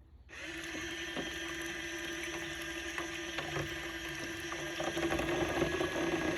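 Portable mini washing machine running submerged in a sink of water: its small motor hums steadily while it churns the water, growing a little louder about five seconds in.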